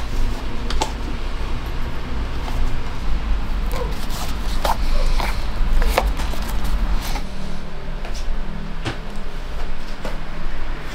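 A hiking boot being hand-stitched for a Goodyear welt: waxed thread drawn through the leather welt and sole with an awl. It comes as a series of short scratchy pulls and sharp taps over a steady low hum.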